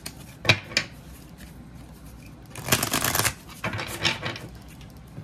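A deck of oracle cards being shuffled by hand: a couple of sharp taps in the first second, then a dense run of quick card flicks for under a second around the middle, followed by a looser run.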